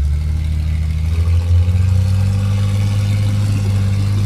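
Engine of a Jeep Cherokee XJ-based rock buggy running steadily under load as it climbs a rock ledge, its revs creeping slowly up from about a second and a half in.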